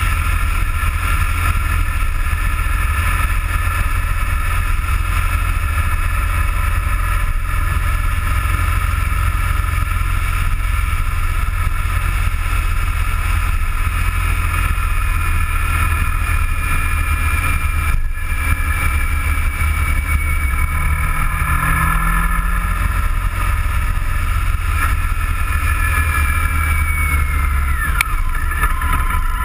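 Vehicle driving along a road, recorded by a camera mounted on it: a steady low rumble of wind and road noise under the engine's steady whine. Near the end the whine falls in pitch as the vehicle slows.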